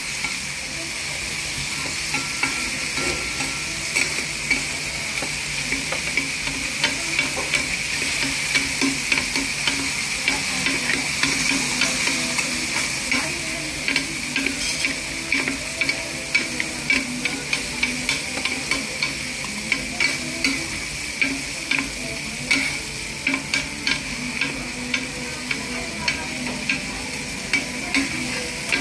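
Shredded cabbage, batter and bacon sizzling on a hot iron griddle, with a steady hiss. Metal spatulas scrape, chop and tap against the griddle plate in quick, irregular clicks.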